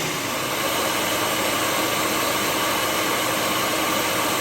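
Ninja Professional XL food processor's 1200-watt motor running steadily on its puree program, the blade grinding roasted cashews in the small nesting bowl into nut butter.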